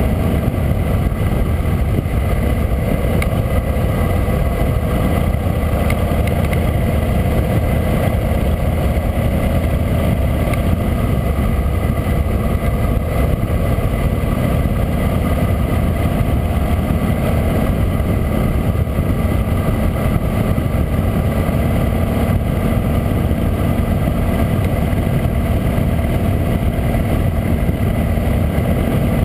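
Harley-Davidson V-twin motorcycle engine running at a steady cruise, heard from a camera mounted on the moving bike, with wind and road noise throughout.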